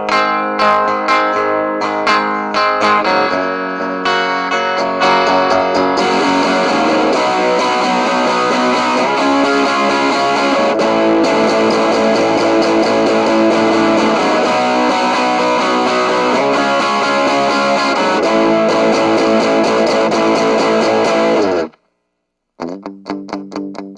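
Squier Sonic Mustang HH electric guitar with humbucker pickups played through distortion: picked notes, then denser, more saturated playing from about six seconds in. Near the end it cuts out for under a second, then resumes with picked notes in a duller tone.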